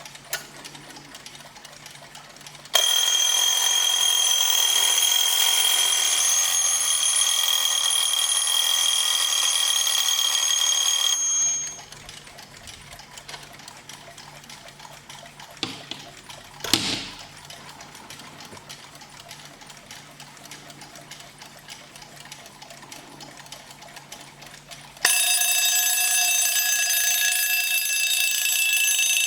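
Alarm clock bells ringing, one clock after another. The first rings for about eight seconds and stops, leaving a quiet, fast mechanical ticking with a couple of clicks. A second clock with a lower-pitched bell starts ringing near the end.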